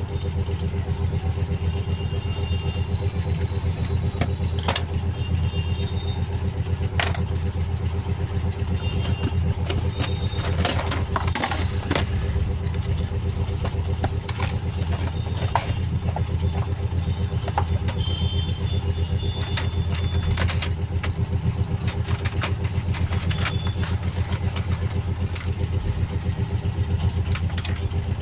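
A steady low machine hum, like an engine or generator running, with short clicks and taps scattered through it from small tools on a phone being taken apart.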